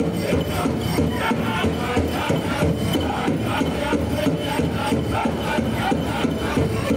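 Powwow drum group beating a big drum in a fast, even beat while the singers sing a prairie chicken dance song.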